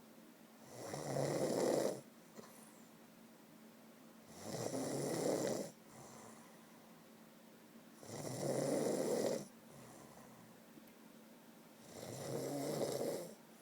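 A sleeping person snoring close to the microphone: four snores, about one every three and a half seconds. Each lasts a second and a half, swelling in loudness and then stopping abruptly, with quiet pauses between.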